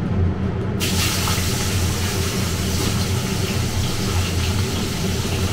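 Steamed cauliflower pieces sizzling in hot oil in a kadai, the hiss starting suddenly about a second in and then running steadily, over a steady low hum.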